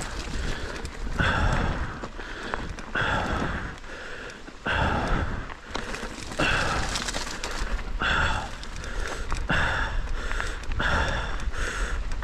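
A mountain bike rider breathing hard, with a loud breath roughly every one and a half to two seconds, over a steady low rumble of the bike rolling down a dirt trail.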